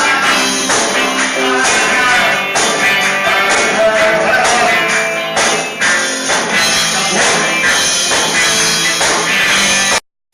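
Loud music with a steady beat that cuts off suddenly near the end.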